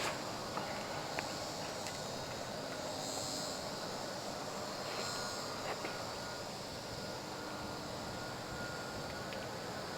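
Steady outdoor ambience: an even hiss with a high, continuous buzz over it, broken by a few faint clicks.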